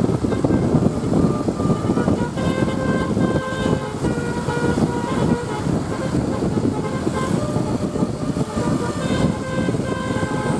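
Basuri 'telolet' multi-tone bus horn playing a melody of short notes that step up and down in pitch, starting about two seconds in, over loud engine and road noise.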